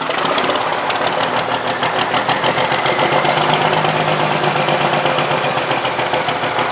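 Cummins KTA600 straight-six diesel of a 1975 Dodge Big Horn truck running, loud and steady with a rapid pulsing exhaust beat from its vertical chrome stack.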